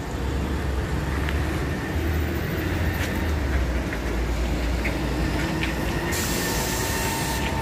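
Street traffic on a busy city avenue: a steady low rumble of passing car engines and tyres. A hiss comes in about six seconds in and lasts just over a second.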